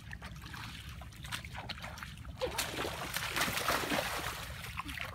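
Splashing and sloshing in shallow muddy water, a few small splashes at first, then loud and continuous from about halfway in, as a child wades and scrambles in it grabbing at a fish with his hands.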